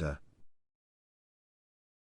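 The last syllable of a synthesized narrator's voice, cut off within half a second, then digital silence.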